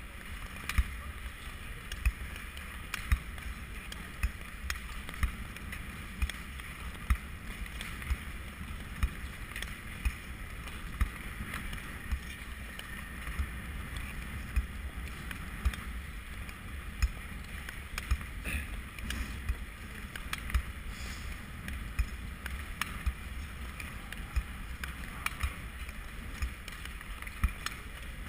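Long-track speed skate blades gliding and scraping on ice, with a sharp stroke sound about once a second as the skates push off, over a low steady rumble.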